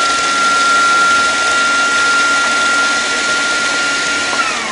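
Electric food processor running flat out, grinding chocolate sandwich biscuits to crumbs, with a steady whine over the motor noise. Near the end it is switched off and the whine drops in pitch as the motor spins down.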